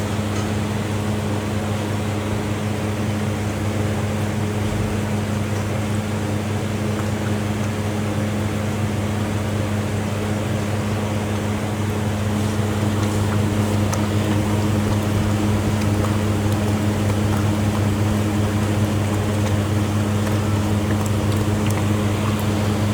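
A steady low machine hum with a constant low tone, joined by a few faint ticks in the later part.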